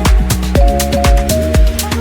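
Electronic background music with a steady four-on-the-floor kick drum, bass line and held synth chords.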